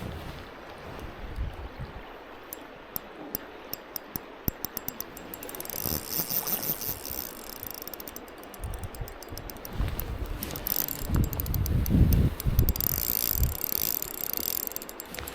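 Fishing reel ratcheting while a hooked steelhead is played: a run of quick clicks, then stretches of buzzing as the drag gives line, over low rumbling noise.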